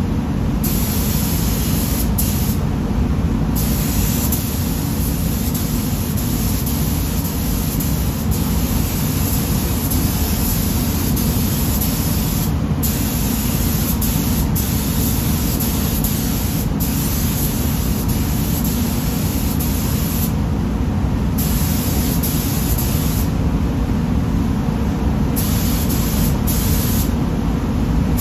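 Gravity-feed paint spray gun hissing as pearl white paint is sprayed onto car bumpers. The hiss drops out briefly several times where the trigger is let off between passes, over a steady low rumble.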